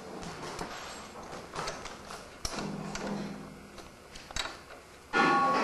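Metal parts of a Meyer pecan cracker being handled as its pockets and cover are taken off: scattered knocks and clicks of metal on metal, with a louder ringing metal clank near the end.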